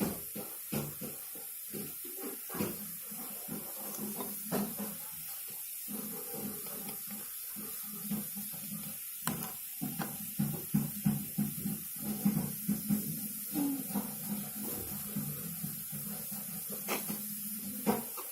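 Water being added to a small plastic DIY candy kit, with irregular light taps and clicks of the plastic parts being handled; the taps come thicker and louder from about ten to thirteen seconds in.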